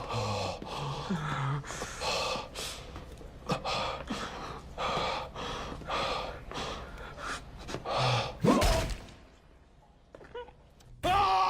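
A man gasping and breathing hard, roughly one harsh breath a second, with a louder gasp about eight and a half seconds in followed by a short quiet stretch.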